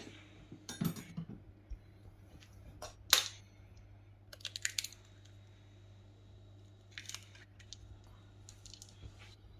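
An egg being cracked on a bowl and added to the batter: scattered light clicks and taps, the sharpest about three seconds in.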